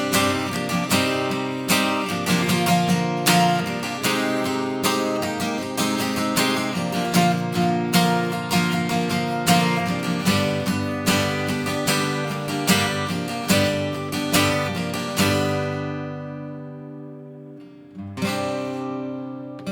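Acoustic guitar strummed in a steady rhythm of chord strokes during an instrumental break. About fifteen seconds in, a chord is left ringing and fades for a few seconds before the strumming starts again.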